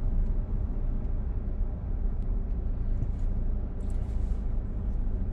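Steady low rumble of a car's engine and running gear, heard from inside the cabin.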